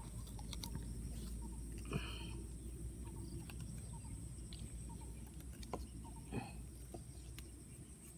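Clothing rustle and handling noise with scattered light clicks over a low steady rumble, with a couple of brief faint calls in the background.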